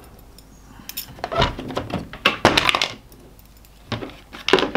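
Metal guide rods of a Lansky knife sharpener being pulled out of the tight clips of their plastic case, clinking against each other and scraping on the plastic in a few short bursts.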